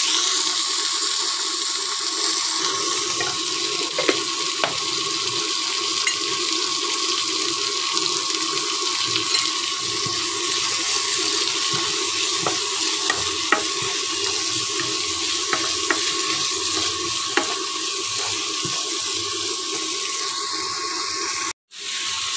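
Onion, tomato, green chilli and garlic pieces frying in oil in a non-stick pan for a tomato chutney: a steady sizzling hiss with occasional light clicks. The sound drops out for a moment near the end.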